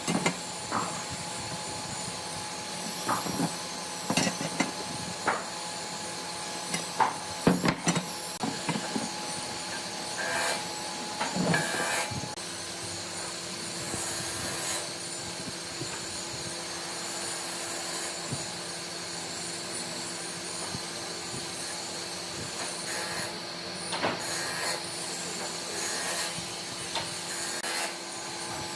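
Hand work on wood: a series of sharp wooden knocks over the first several seconds, then steady rubbing and scraping of a tool on wood with a few scattered knocks, over a steady workshop hum.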